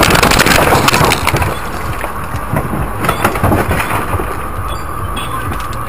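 A car crash heard from inside the car: a loud crunching, scraping impact for about the first second and a half, then scattered knocks and rattles as the car comes to rest. A steady buzzing tone comes in during the second half.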